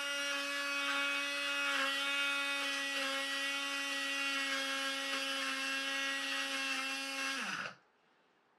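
Small electric grinder-blender motor running at a steady whine, its blades chopping garlic cloves with a little water into a paste. About seven and a half seconds in the pitch drops and the motor cuts off.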